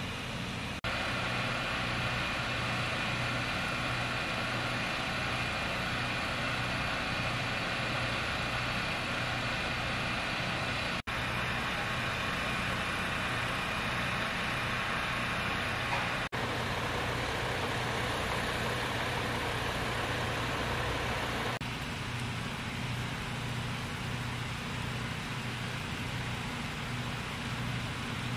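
Fire engines running steadily, a constant low engine hum with a hiss above it. The sound drops out briefly three times and the hiss lessens near the end, where the shots change.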